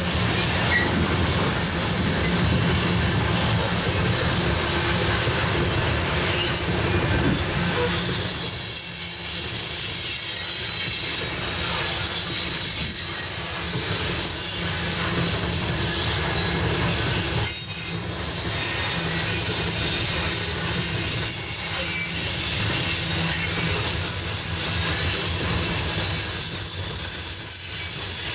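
Loaded coal hopper cars of a freight train rolling steadily past, a continuous rumble of wheels on rail with some high wheel squeal.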